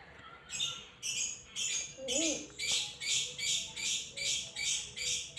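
A child sucking and slurping on a frozen strawberry pudding pop, a wet hissing slurp repeated about twice a second.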